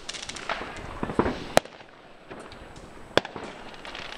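Firecrackers and fireworks going off: sharp bangs, the two loudest about a second and a half in and near three seconds, among scattered smaller pops and crackles.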